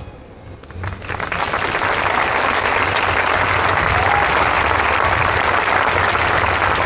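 Audience applause breaking out about a second in, quickly building to dense, steady clapping.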